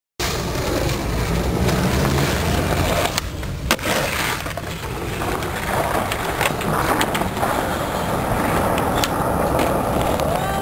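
Skateboard wheels rolling on pavement with a steady gritty rumble, broken by several sharp clacks of the board hitting the ground, the loudest a little under four seconds in.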